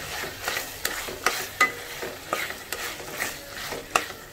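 Prawns frying in a thick ghee-and-spice masala in a nonstick pan, stirred with a silicone spatula: a low sizzle under short scraping strokes of the spatula through the pan, about two a second.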